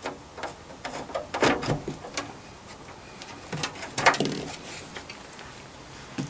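Screwdriver backing a screw out of a rubber foot on the metal case of a Heathkit SB200 amplifier: scattered clicks, scrapes and knocks, with louder clusters a little over a second in and again around four seconds.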